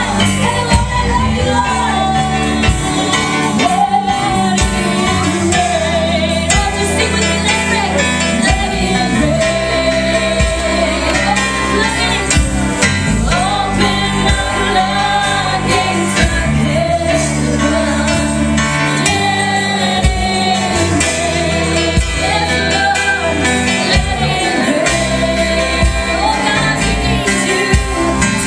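Live worship music: female voices sing a melody over a band with bass and drums.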